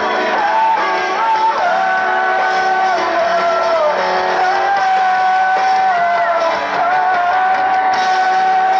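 Live rock band playing a song, a singer holding long notes over guitars and keyboard.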